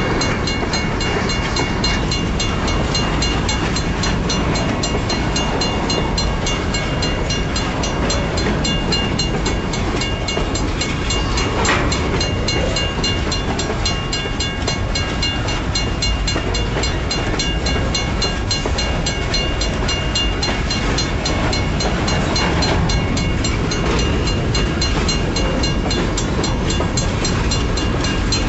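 Loaded BNSF grain hopper cars rolling steadily past at low speed: a continuous rumble and rattle of wheels on the rails, with a steady high ringing over it.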